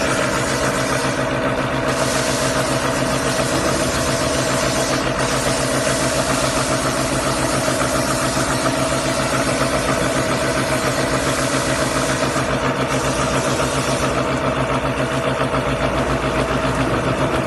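DX-series beam end face milling machine facing the end of a welded I-beam: the milling head runs steadily with a fast, even pulsing and a cutting hiss that comes and goes.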